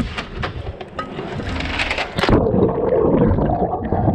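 A diver going over the side of a dinghy into the sea: splashing at the surface, then about two seconds in the sound turns muffled, with bubbling and gurgling heard from underwater.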